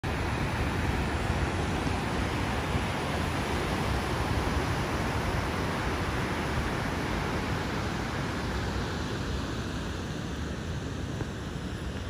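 Ocean surf breaking offshore and washing up the beach: a steady rush of noise with a low rumble underneath, easing slightly in the last few seconds.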